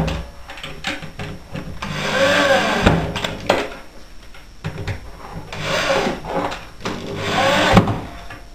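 Corded electric drill driving screws into a laminated chipboard panel: two runs of the motor a few seconds apart, its pitch rising and falling as each screw goes in, each run ending in a sharp knock.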